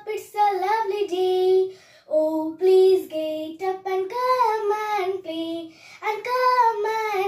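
A young girl singing a children's rhyme alone, her voice the only sound, in held sung phrases with a short break about two seconds in.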